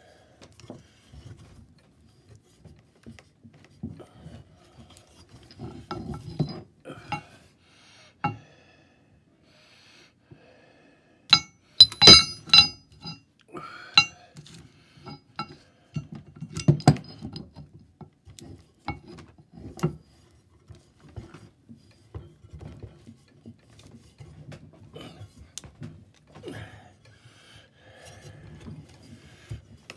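Irregular metal clinks, knocks and scrapes as steel clamping plates and a bolt are handled against a used Caterpillar Sixty head gasket, which is being worked flat. The loudest burst of clanks comes a little before halfway, with scattered lighter taps around it.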